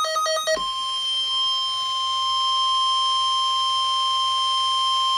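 Emergency Alert System signals. A buzzy electronic data burst cuts off about half a second in. It is followed by a steady, single-pitched alert tone near 1 kHz, the NOAA Weather Radio style 1050 Hz warning alarm tone that announces a severe weather warning message.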